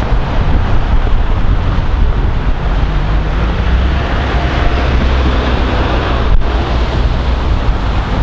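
Wind buffeting the microphone: a loud, gusty low rumble with a hiss over it.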